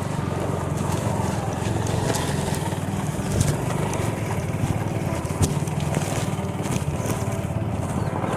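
Small motorcycle engine running steadily under load, with a couple of sharp knocks about three and a half and five and a half seconds in.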